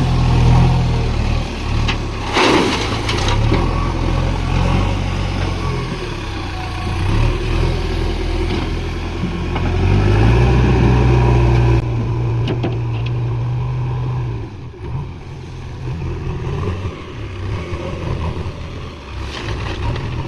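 Diesel engine of a JCB backhoe loader working under load, speeding up and slowing as it works. A short loud noise comes about two and a half seconds in. The engine rises and holds about ten seconds in, then drops back near twelve seconds.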